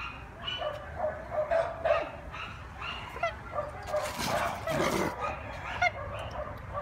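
Dog giving rapid short, high yipping barks, about two or three a second: play barking while inviting another dog to play. There is a rougher, louder burst about four seconds in.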